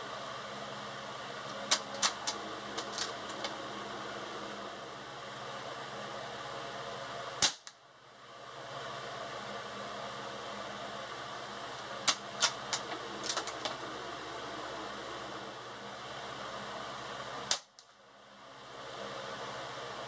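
Two quiet shots, about ten seconds apart, from a Glenfield Model 20 bolt-action .22 rifle firing low-velocity CB short cartridges. A few seconds before each shot comes a quick run of metallic clicks as the bolt is worked.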